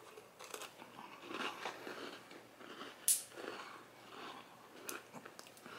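Faint chewing: a mouthful of s'mores dip on a crunchy cookie being eaten, with one louder crisp sound about three seconds in.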